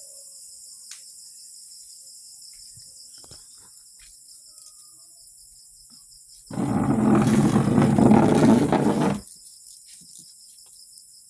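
Crickets chirping steadily in a high, pulsing chorus. About six seconds in, a loud rough noise breaks in, starts and stops abruptly and lasts nearly three seconds.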